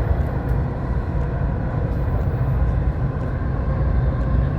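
Dubai Metro train running between stations, heard from inside the car: a steady low rumble of wheels and running gear, with a faint steady motor whine above it.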